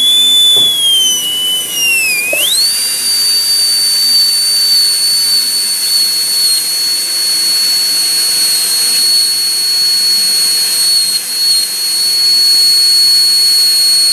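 High-speed air-turbine dental handpiece (airotor) with a 330 bur, whining as it drills depth cuts into the pits of a molar. The high whistle wavers and dips in pitch for the first two seconds or so, then rises and holds a steady, higher whine over a hiss of air.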